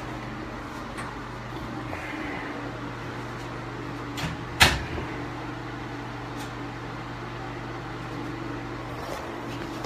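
Steady mechanical hum of a ventilation fan or air-conditioning unit in a small room, with a single sharp knock about four and a half seconds in.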